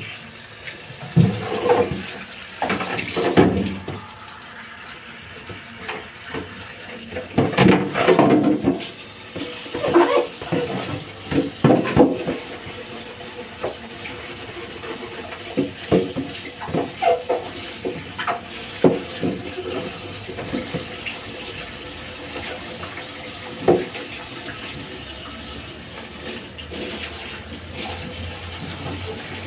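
Tap water running into a sink while fridge parts are washed by hand, with irregular knocks and clatters of the items against the sink.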